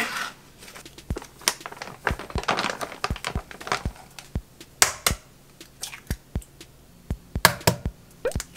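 Kitchen prep sounds: plastic film peeled from a meat tray with crinkling, frying mix shaken from its bag into a glass bowl, and glass bowls knocked on a wooden chopping board in a run of sharp clicks and knocks. An egg is cracked into a glass bowl near the end.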